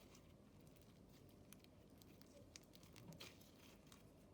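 Near silence with faint, scattered small clicks and crackles from slime mixed with foam beads being handled.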